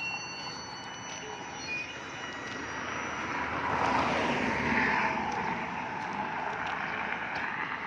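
A motor vehicle passing along the road, its noise building to a peak about halfway through and then fading as it goes by.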